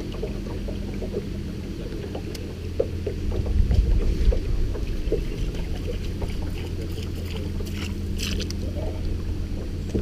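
Bass boat's bow-mounted electric trolling motor running: a steady low hum over water and hull noise, which swells about four seconds in. A few light clicks come near the end.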